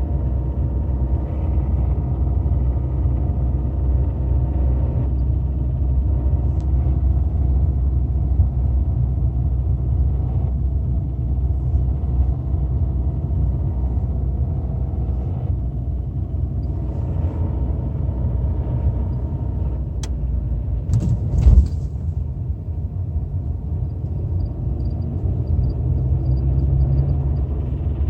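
Renault Mégane II 1.6 petrol engine running steadily, with a single loud thump about two-thirds of the way through. The owner hears an unexplained knock and crunch from it at 1500–2500 rpm, even though the timing belt with its rollers, the alternator belt and the cam phaser are all new.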